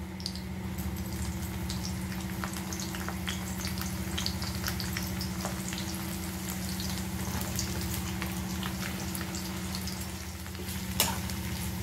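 Bitter gourd slices frying in hot oil in a kadai, with a light sizzle and scattered small crackles over a steady low hum. One sharper knock about eleven seconds in.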